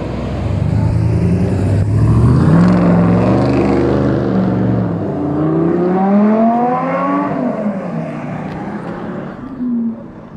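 Engines of rally cars driving past close by. A Rezvani Tank SUV rumbles past at the start, its engine note swelling. About five seconds in, a Lexus LC coupe accelerates past, its engine note rising and then falling away.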